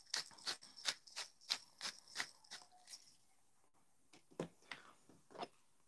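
Hand-twisted spice mill grinding, a regular crunching click about three times a second, stopping about three seconds in; a few softer clicks follow near the end.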